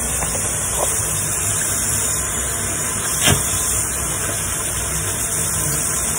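Bathroom sink tap running steadily while a toothbrush is rinsed under the stream, with a single short knock about three seconds in.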